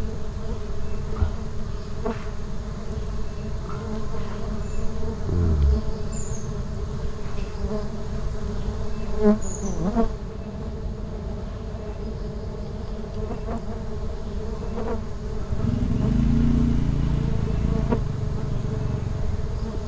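Stingless bees buzzing steadily around their broken-open nest, with occasional knocks as the nest is handled.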